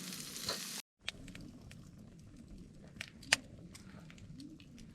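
Meat sizzling over a wood fire for about the first second, then, after a brief cut, a wood campfire crackling with sparse, irregular pops, one sharper pop about three seconds in.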